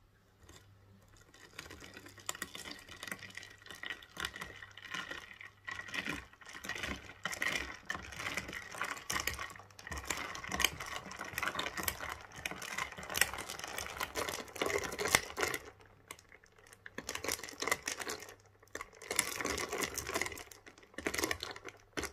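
Long metal spoon stirring whipped coffee foam down into iced milk in a tall glass, rattling and clinking against the glass and ice cubes in quick irregular clicks, with a short lull about two-thirds of the way through.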